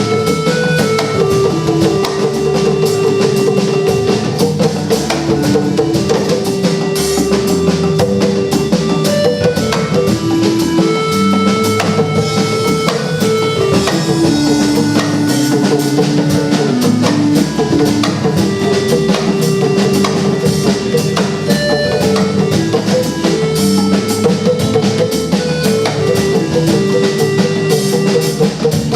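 Music with a busy drum and percussion beat under a melody of held notes that step from pitch to pitch.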